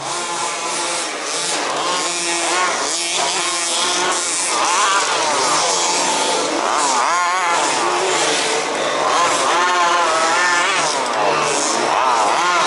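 Several 1/5-scale petrol RC off-road cars racing, their small two-stroke engines overlapping in whines that rise and fall in pitch as they rev up and back off around the track.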